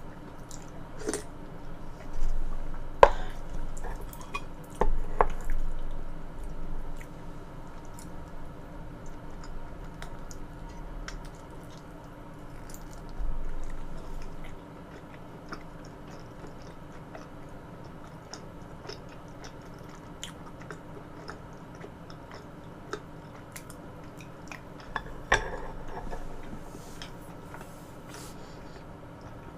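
Close-miked chewing of soft food, with wet squishy mouth sounds and scattered sharp clicks and taps. The clicks are thickest in the first several seconds and come again briefly near the end.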